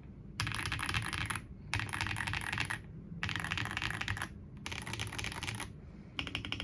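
AULA F87 Pro mechanical keyboard being typed on in four fast, dense bursts of key clicks, each about a second long with short pauses between. Near the end it changes to steady, evenly spaced keystrokes.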